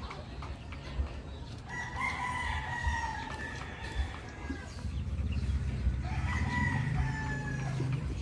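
Gamefowl roosters crowing: two long crows, the first starting about two seconds in and the second about six seconds in.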